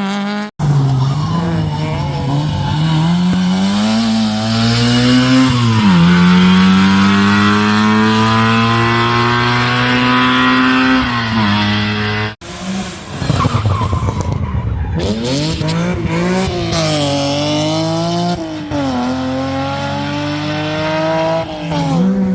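Rally car engines at full throttle, the pitch climbing under acceleration and dropping sharply at gear changes and lifts. About halfway through the sound cuts abruptly to another car revving up and down.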